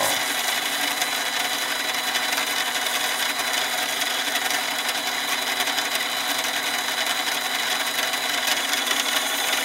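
Harbor Freight mini lathe running steadily at low speed in low gear: an even motor-and-gear whine with several steady tones.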